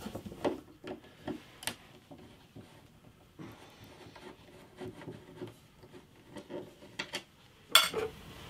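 Hand screwdriver undoing the screws in a keyboard's base plate: faint scraping with scattered small clicks and taps. A louder burst of handling noise comes near the end.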